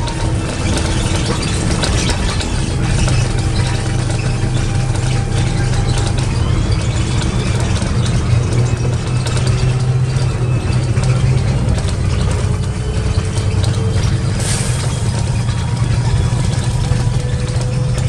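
Karosa B961 articulated city bus heard from inside the cabin: its diesel engine and drivetrain run with a steady low hum, a faint whine that drifts and slowly rises in pitch in the second half, and interior rattles. A short hiss cuts in about fourteen seconds in.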